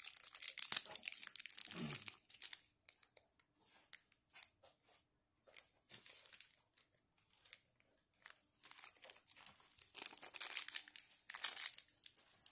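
Thin clear plastic bags crinkling as they are handled and opened to take out small figure parts. The crinkling is dense for the first two seconds, drops to a few faint ticks of handling in the middle, and picks up again from about ten seconds in.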